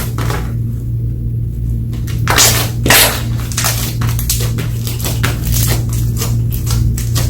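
Slime being squished and pressed by hand, with irregular wet crackles and pops, the loudest a little over two seconds in and again about three seconds in, over a steady low hum.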